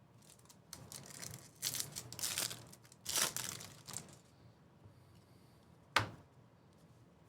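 Baseball card pack wrappers being torn open and crinkled, in a few rustling bursts, then a single sharp tap about six seconds in.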